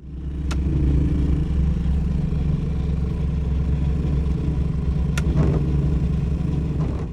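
Renault 4 GTL's small four-cylinder engine running steadily with a low rumble, with two sharp clicks, one about half a second in and one about five seconds in.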